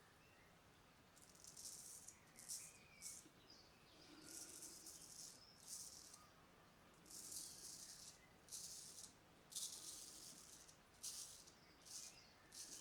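Filarmonica 4/8 straight razor scraping through lathered stubble in about a dozen short strokes, each a faint, high crackling rasp. The blade has a very sharp edge and cuts cleanly.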